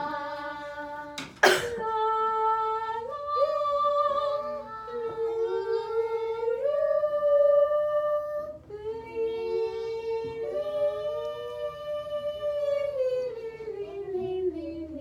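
Voices humming a slow tune in long held notes that step up and down, with one sharp click about a second and a half in.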